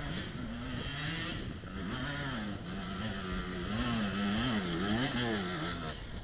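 Enduro dirt bike engine revving up and down as it climbs a steep dirt slope, the pitch rising and falling again and again and the sound getting louder as the bike draws near.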